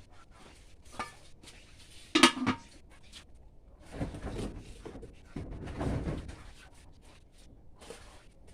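Kitchenware being handled: a light click, then a loud ringing clank about two seconds in, followed by two longer stretches of scraping and shuffling.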